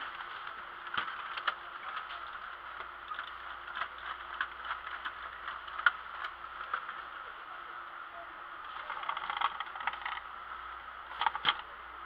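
Light clicks and taps of hard plastic remote-control toy cars being touched and nudged by hand, a few louder taps near the end, over a steady background hiss and hum.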